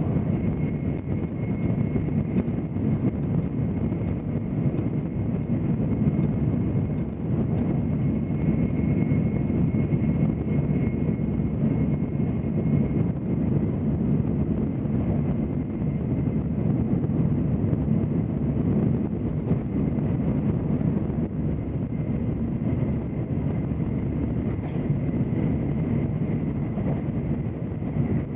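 Tokaido Shinkansen train running at speed, heard inside the passenger cabin as a steady low rumble, with a faint high whine above it.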